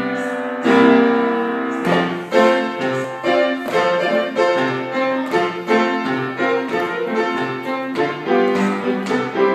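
Piano playing a lively tune: a few held chords, then a quick run of struck notes.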